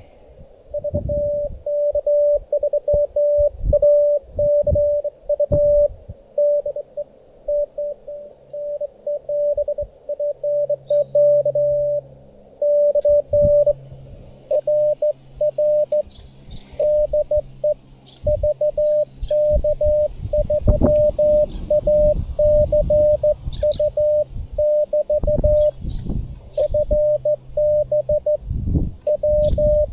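Morse code (CW) from an amateur radio transceiver: a single tone of about 600 Hz keyed on and off in dots and dashes, with short gaps between characters and words. A low hum comes in about ten seconds in.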